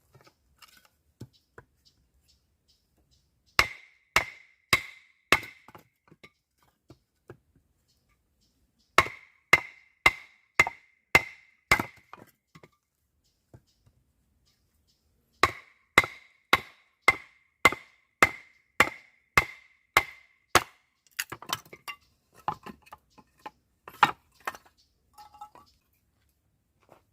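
Repeated sharp knocks of wood being chopped, about two a second, in three runs of several strikes each, followed by lighter, irregular knocks near the end.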